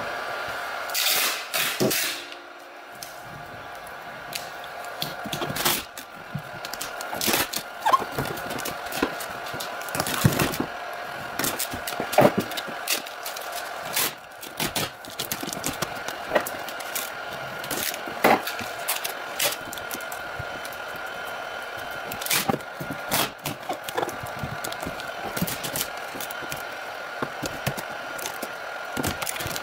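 Aluminium foil tape being pulled off the roll, torn and crinkled and pressed down by hand: an irregular scatter of crackles, rips and taps over a steady background hum.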